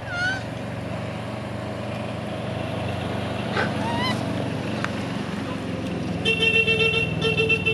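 A motor vehicle runs with a steady low hum, and about six seconds in its horn sounds in a rapid run of short beeps, the loudest thing heard. A couple of short rising chirps come near the start and about midway.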